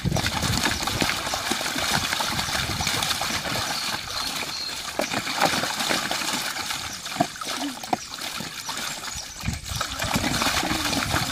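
A Kelpie-cross dog splashing without a break in a plastic clam-shell paddling pool, pawing and churning the water with its front legs and throwing it about.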